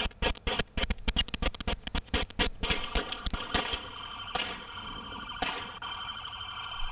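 Rapid pistol gunfire on a police body camera's microphone, several shots a second, stopping about two and a half seconds in. After that a steady alarm tone rings, broken by a few single shots.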